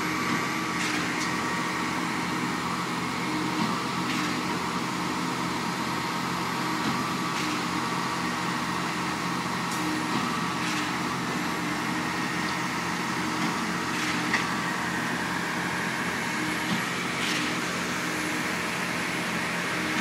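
Steady diesel drone of a 53-meter concrete boom pump truck working, with a ready-mix mixer truck feeding its hopper. A few faint clicks and knocks are scattered through it.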